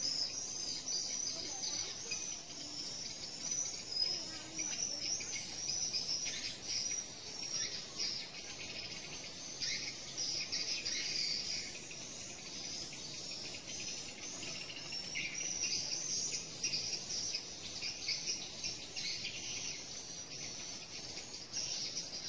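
Steady high-pitched chorus of insects chirring without a break, with a few bird chirps mixed in.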